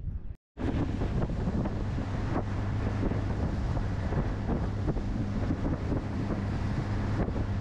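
Small boat's outboard motor running at speed, a steady low hum under wind rushing over the microphone and water along the aluminium hull. The sound drops out completely for a moment about half a second in.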